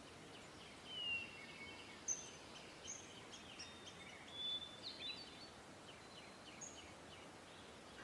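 Faint, scattered bird chirps and short whistles, some falling in pitch, over a steady low background hiss.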